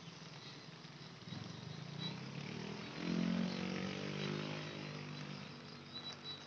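A motor vehicle passing: its engine hum builds from about a second in, is loudest about three seconds in, then slowly fades. Underneath is a steady hiss of light drizzle on an umbrella.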